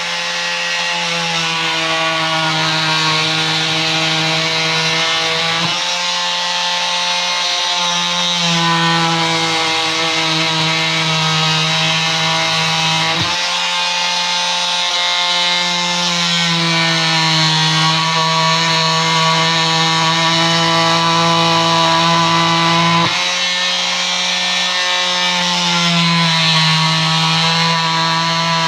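Porter-Cable multi-saw running continuously as it cuts a sheet of rubber. Its steady motor hum shifts slightly in pitch several times as the load changes.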